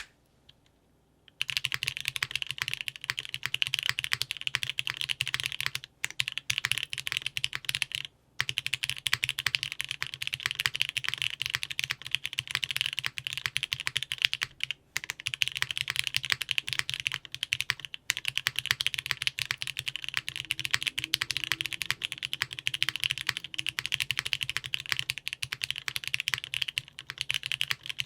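Steady fast typing on a custom tenkeyless mechanical keyboard with lubed Cherry MX Black linear switches in an aluminium top-mounted plate, fitted with GMK keycaps. The typing starts about a second in and stops briefly a few times.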